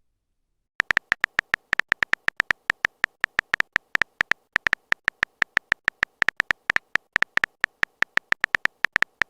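Phone-keyboard typing sound effect: a fast run of short, uneven clicks, about seven a second, starting just under a second in.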